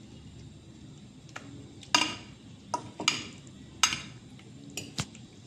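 Metal fork stirring chicken strips in a wet egg marinade in a glass baking dish, striking the glass in several sharp, irregular clinks.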